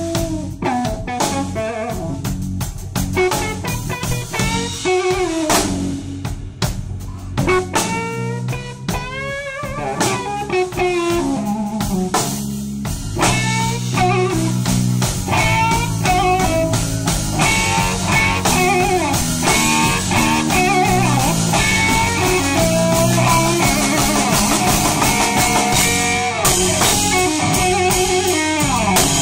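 Electric guitar playing a live blues-rock solo full of bent notes, with a drum kit behind it. The playing is sparser at first, then grows fuller and louder from about halfway through.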